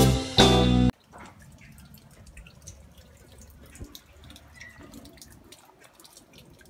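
Intro music with guitar and drums cuts off about a second in. Then faint water dripping: scattered single drops over a soft hiss.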